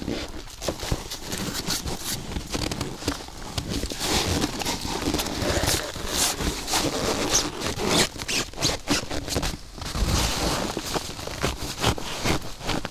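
Rustling and scraping of a nylon stuff sack and a rolled foam sleeping mat being packed and then pressed down by kneeling on the bag, with snow crunching underfoot.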